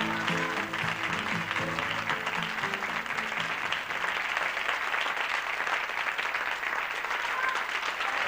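Studio audience applauding as a pop song's closing music fades out over the first few seconds.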